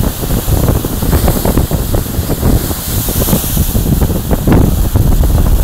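Heavy surf surging into a rocky sea inlet, with white water pouring back off the rock ledges. Strong wind buffets the microphone throughout.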